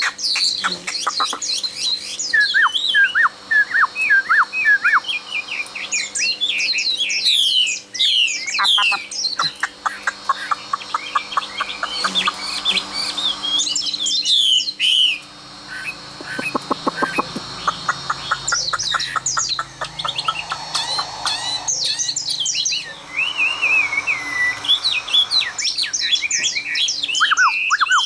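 Chinese hwamei (Garrulax canorus) singing a long, varied song: loud whistled phrases, rapid trills and runs of repeated notes that glide up and down, with a few short breaks.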